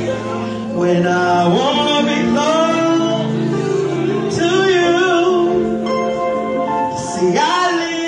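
A woman singing a gospel solo through a microphone and PA, drawing her notes out in long sliding runs over held accompaniment chords.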